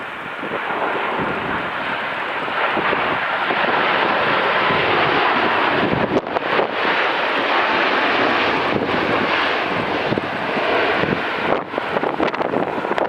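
Boeing 787-9 jet airliner's turbofan engines, a steady roar that builds over the first few seconds, holds, then eases a little near the end.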